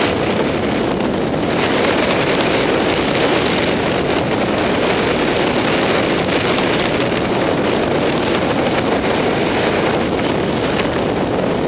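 Steady rush of wind over the microphone of a camera worn while descending a groomed ski run at speed.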